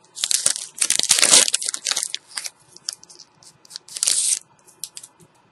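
Foil wrapper of a Pokémon trading card booster pack crinkling and tearing as it is opened by hand: a dense run of crackling for about the first two seconds, then scattered crinkles and one more short burst about four seconds in.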